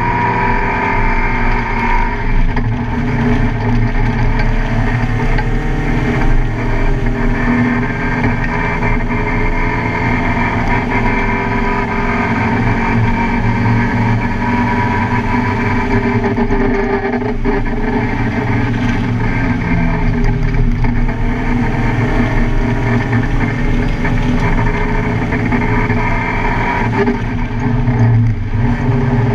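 Car engine running hard on a track lap, its pitch climbing and dropping as the driver accelerates, shifts and slows for corners.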